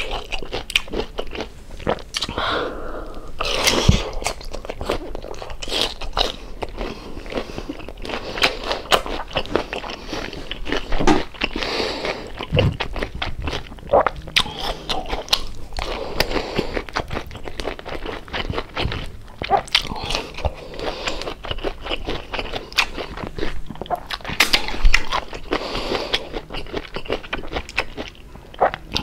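A person biting and chewing crispy lechon kawali (deep-fried pork belly) close to the microphone: loud, irregular crunching that goes on throughout, with wet chewing between the bites.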